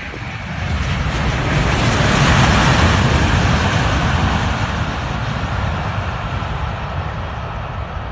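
Twin-engine widebody jet airliner rolling past along the runway, its jet engine roar swelling to a peak about two and a half seconds in, then slowly fading as it moves away.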